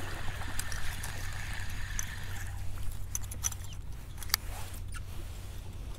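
Spinning reel being wound in, then a few sharp clicks as the reel is handled and the bail opened for a cast, over a steady low hum and light water lapping.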